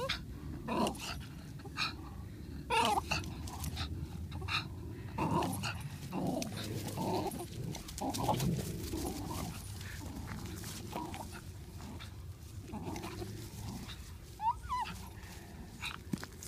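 A Parson Russell Terrier and a Greater Swiss Mountain Dog growling as they tug on a rope toy, with short sharp yips scattered throughout and a brief high whine near the end.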